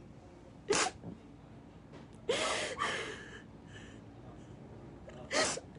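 A woman crying between sentences: a sharp gasping breath about a second in, a sobbing breath with a short whimper around the middle, and another gasp near the end.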